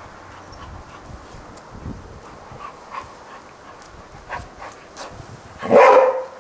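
Golden retriever giving one loud bark near the end.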